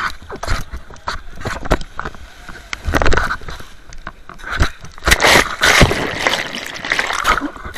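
Sea water splashing and churning in breaking surf, in loud irregular surges.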